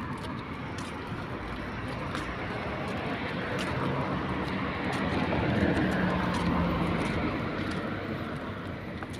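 Street traffic: cars passing on the road, the noise swelling to its loudest about six seconds in and then easing off.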